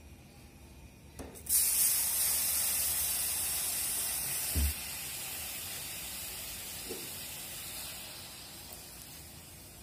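Water poured into a hot nonstick pan of sugar, hissing sharply as it hits, starting suddenly about a second and a half in. It eases to a softer, steady sizzle that slowly fades, with a dull knock a few seconds in.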